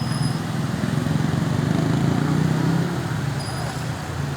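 A motor vehicle's engine going past close by, a low rumble that grows louder to about two seconds in and then fades.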